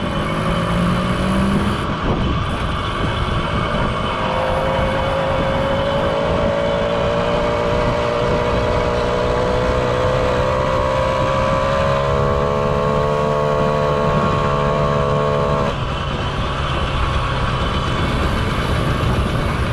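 Moped engine running steadily under way, its pitch climbing slowly for several seconds as it gathers speed, then dropping suddenly about sixteen seconds in, with wind rushing over the moving moped's microphone.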